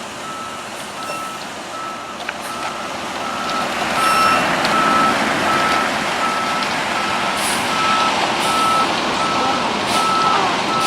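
A truck's reversing alarm beeping steadily, about two beeps a second, over the truck's engine running, which grows louder about four seconds in.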